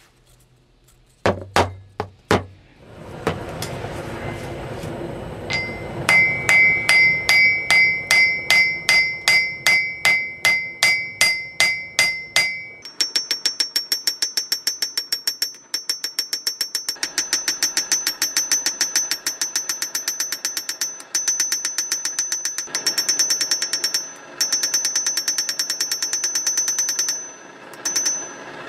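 Steel being hammered on an anvil, each blow ringing. A few separate blows come first, then a steady run of about two to three a second, and from about halfway a faster run of about five a second with a higher ring. A steady rushing noise sits underneath during the first half.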